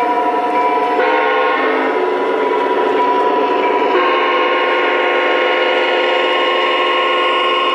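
An O scale model diesel locomotive's onboard sound system blowing its multi-chime horn in long steady blasts, the chord changing a few times as the train approaches.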